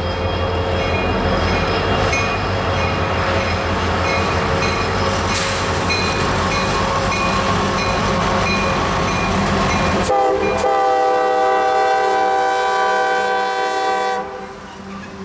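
Diesel freight locomotive and train rolling past, with engine and wheel rumble. About ten seconds in, a loud multi-chime air horn chord sounds for about four seconds.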